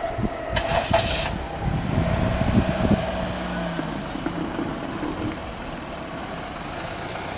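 Road vehicles, a truck among them, driving past close by, with a brief hiss about half a second in.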